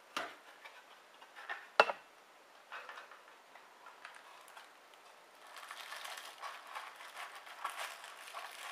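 Handling of a thin wooden knife box: a few sharp knocks, the loudest about two seconds in. From about halfway there is a continuous crinkling of the clear plastic film wrapped around the Santoku knife as it is gripped.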